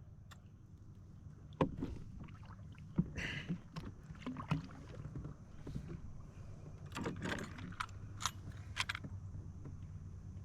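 Scattered knocks, clicks and rattles of gear being handled in a kayak, with a cluster of clatter about seven to nine seconds in, over a faint steady low hum.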